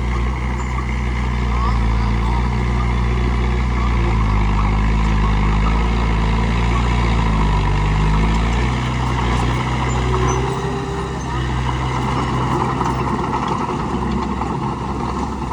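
Bulldozer's diesel engine running hard as the machine pushes dirt, its note sagging for a few seconds near the middle and then climbing back.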